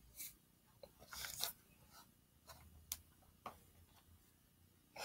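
Near silence broken by about half a dozen faint, short clicks and a brief rustle just over a second in: small handling and movement noises of a person right next to the microphone.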